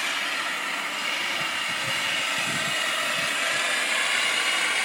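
Plumber's gas torch burning with a steady hiss while it heats a pipe fitting for soldering.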